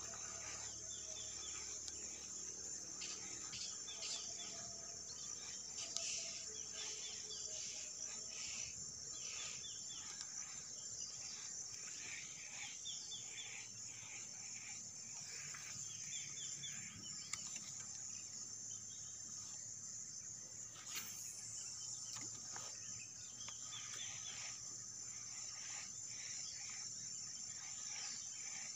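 Evening insect chorus: a steady, high-pitched drone, with short chirping calls repeating throughout and a single click near the end.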